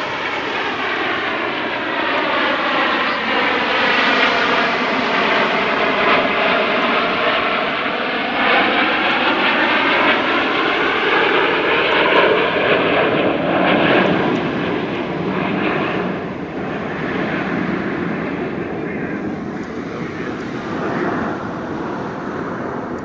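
Formation of Snowbirds CT-114 Tutor jets flying past: a steady jet rush with a sweeping, shifting tone that swells to its loudest around the middle and then eases away.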